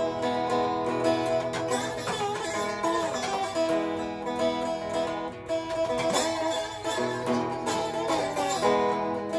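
Tri-cone resonator guitar in open E tuning played with a slide: plucked notes ringing out, with several glides in pitch as the slide moves along the strings.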